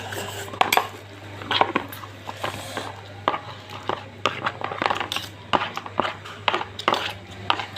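Cutlery clinking and tapping against a plate in irregular strokes while spaghetti is eaten, over a steady low hum.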